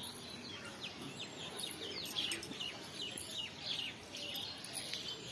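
Small birds chirping in the trees around the roof: many short, falling chirps, several a second, with no one call standing out.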